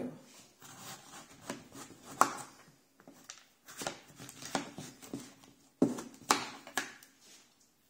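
A kitchen knife cutting through raw butternut squash and knocking on a cutting board: a series of irregular knocks, the loudest about two seconds in and a cluster near the end.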